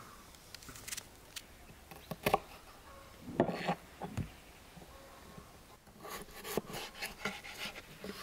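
Small kitchen knife peeling and cutting a raw potato on a wooden chopping board: scattered scrapes and taps of the blade, with a quicker run of cuts on the board near the end.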